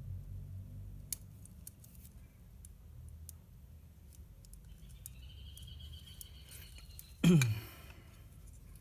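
Thin steel fishing cable being threaded and pulled through a small hole in a plastic hair-clipper housing: faint scattered clicks and rubbing, with a thin high squeal as the cable slides through, then a sudden louder knock that drops in pitch about seven seconds in.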